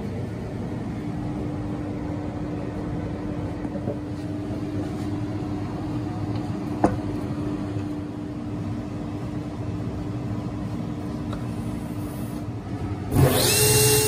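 Steady hum of a workshop machine motor running. Near the end it gives way suddenly to a louder table saw cutting wood, with a steady whine from the blade.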